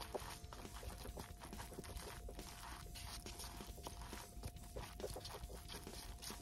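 Chopsticks stirring sauce-coated Samyang Fire Noodles in a paper cup: many quick, irregular clicks and scrapes as the sauce is mixed through.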